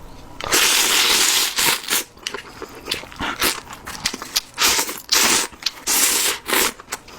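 Close-miked eating of seafood ramen: a long noisy slurp about half a second in, then a run of short crunchy chewing and smacking noises.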